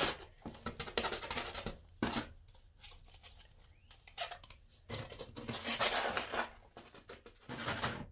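Hands scooping sandy John Innes seed compost and filling small black plastic plant pots with it, making irregular bursts of gritty rustling and scraping with light handling of the plastic pots.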